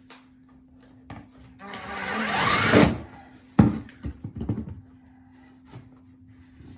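Power drill driving a screw through a metal protective plate, running for about a second, louder as it goes and dropping in pitch before it stops; a few sharp knocks follow.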